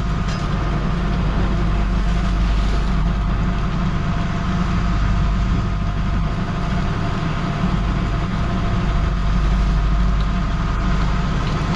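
Steady low drone of the fishing boat's onboard engine machinery, running without change, with a constant hum and a couple of steady higher tones over it.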